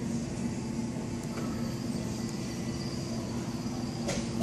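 Steady mechanical hum with a low droning tone, and a few sharp knocks near the end.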